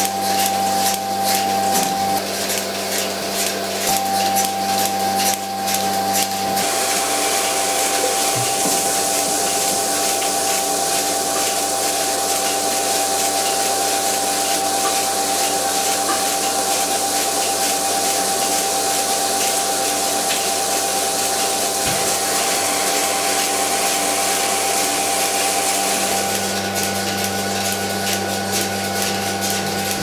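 Milking-parlour milking machine running: a steady vacuum hiss and hum as milk and air rush into the glass recorder jars. Fast clicking is heard in the first few seconds and again near the end. From a few seconds in until near the end the hiss is brighter and the hum drops away.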